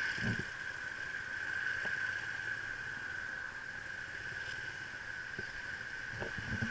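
Riding gloves being pulled on: soft rustles and a couple of faint knocks, over a steady high-pitched whine that holds the same pitch throughout.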